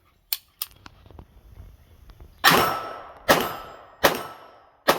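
Two short clicks, then four shots from a PSA AR-V9 9mm pistol-calibre carbine, fired evenly a little under a second apart, each with a ringing echo.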